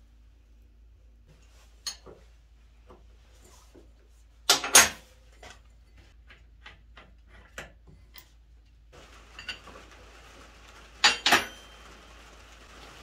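Metal clanks and knocks as an old rice transplanter transmission with its V-belt pulleys is handled and turned on a steel workbench. Scattered light clicks, with two loud bangs about five seconds in and again near eleven seconds.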